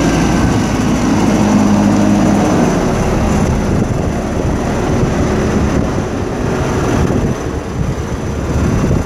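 New Holland LM7.42 telehandler's diesel engine running at a steady speed. It is loudest and most even-toned in the first three seconds, then rougher.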